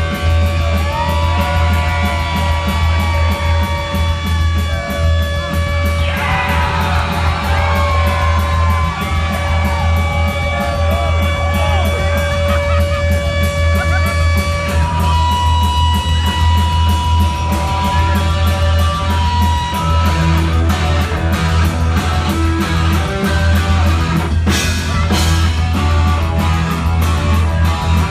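Electric guitar solo played live through a loud amplifier: long sustained notes with sliding pitch bends over a droning low note.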